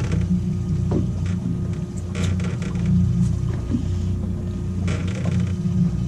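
Outboard motor idling with a steady low hum, with scattered light clicks and knocks on top.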